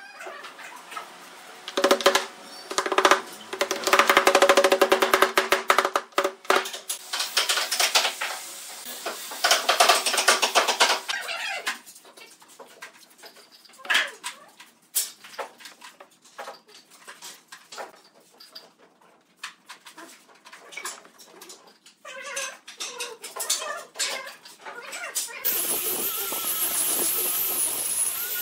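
Short sharp knocks and taps of wooden pieces being handled and fitted together. About 25 seconds in, an electric angle grinder fitted with a sanding disc starts up and runs steadily with a high whine, sanding the wooden tabletop.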